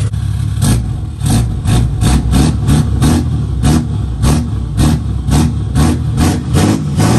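Straight-piped 2021 Ram 6.7 L Cummins inline-six diesel idling and being revved in short, sharp throttle blips, about two to three a second, with the newly fitted exhaust making each one loud.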